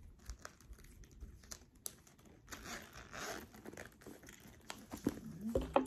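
Handling of a fabric-covered zip wallet and a bag: rustling and crinkling with many small clicks of zipper and hardware as items are moved, heaviest about halfway through. A short vocal sound near the end.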